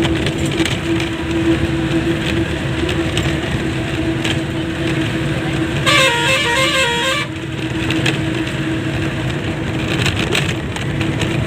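Steady running noise inside a moving bus, engine and road noise with a constant drone. About six seconds in, a vehicle's musical horn sounds a short warbling run of alternating notes for just over a second.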